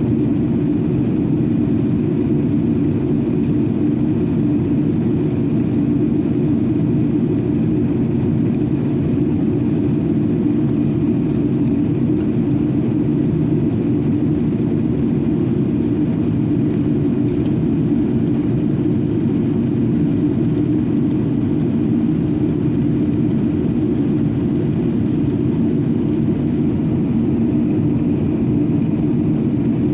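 Steady cabin drone inside an Airbus A380-800: the deep engine and airflow noise of the airliner, even and unchanging, with a faint high whine above it.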